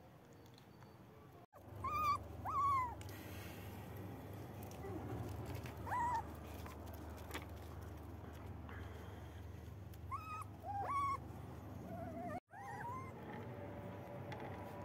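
Young puppies whining: short, high-pitched cries that rise and fall, coming in small clusters of two or three.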